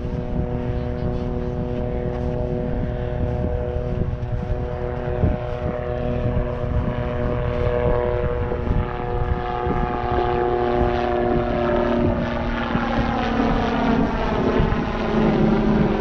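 Drone of a passing propeller plane's engine, steady at first, its pitch falling over the last few seconds as it goes by, with wind rumbling on the microphone.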